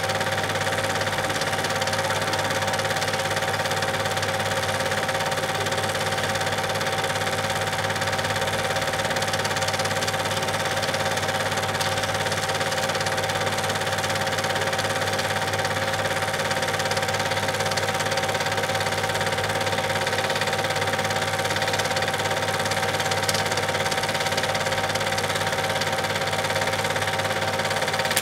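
Super 8 film projector running: a steady mechanical whir with a constant hum and a fine, rapid flutter.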